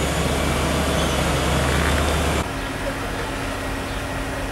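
ABG P7820D asphalt paver's diesel engine running steadily at work, with a strong low hum, as a tipper truck feeds asphalt into its hopper. A little over two seconds in the sound cuts abruptly to a HAMM tandem roller's engine running, quieter, with one steady hum.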